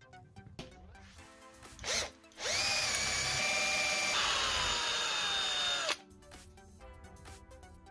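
Cordless drill drilling a hole into a steel shaft: a brief blip, then about three and a half seconds of steady drilling. Its pitch drops a step partway through and sags toward the end, then stops suddenly.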